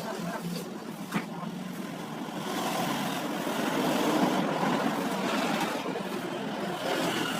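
A motor vehicle running and passing, its noise swelling in the middle, with a single sharp knock about a second in.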